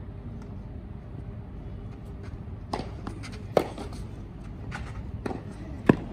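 Tennis rally: a handful of sharp racket strikes on the ball, starting about three seconds in, over a low steady rumble. Two of the hits are much louder than the rest.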